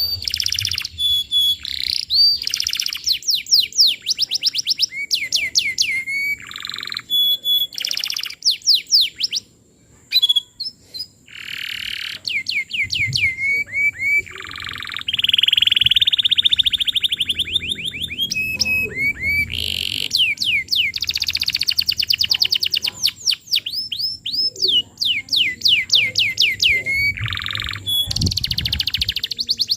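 Domestic canary singing continuously: fast rows of repeated down-slurred notes, switching to a new note type every second or two, with a buzzy rolling trill in the middle and a short pause about ten seconds in. It is the full, non-stop 'gacor' song used as a lure and tutor song for young canaries.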